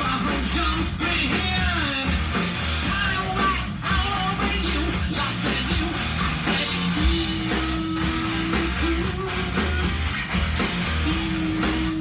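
Rock music played from a vinyl record: a full band with electric guitar, drums and a singer.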